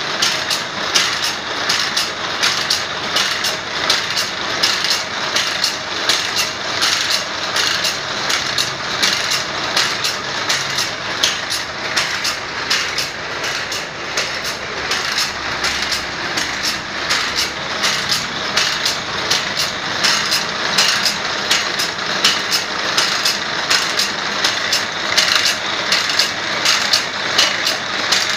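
Automatic band saw blade sharpener running: the grinding wheel grinds the blade teeth one after another while the feed pawl clicks the blade along a tooth at a time, in a steady, evenly repeating rhythm.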